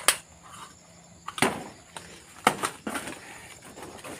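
A few sharp rustles and cracks of leaves and stems being pushed through or snapped in dense undergrowth, about four spread over the seconds. Under them runs a faint, steady high buzz of insects.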